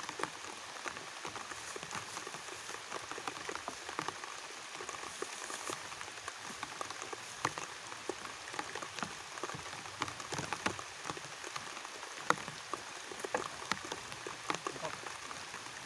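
Steady rain, with many individual drops ticking irregularly close by.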